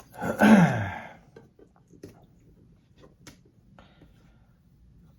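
A short voice-like sound that falls steeply in pitch, followed by a few light scattered clicks and taps of small objects being handled.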